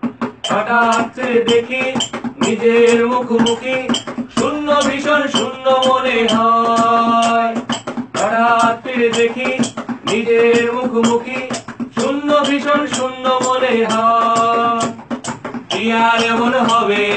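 A young man singing a Bengali song in long held phrases, accompanied by a strummed acoustic guitar.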